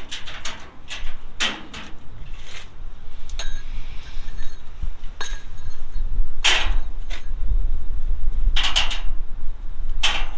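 Irregular metal clanks and clicks of a car-hauler tie-down strap being hooked and ratcheted tight on the trailer, the loudest strikes a little past halfway and near the end, over a low rumble.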